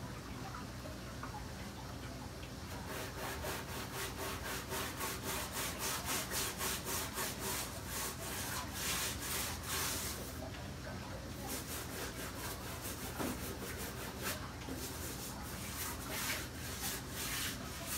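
Stiff-bristled hand brush scrubbing brown algae off an aquarium's textured rock background, in quick back-and-forth strokes that start about two and a half seconds in.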